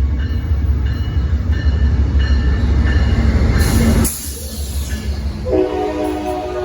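Amtrak P42DC diesel locomotives passing close with a heavy low rumble that drops off suddenly about four seconds in. About a second and a half later a locomotive air horn sounds a steady multi-note chord.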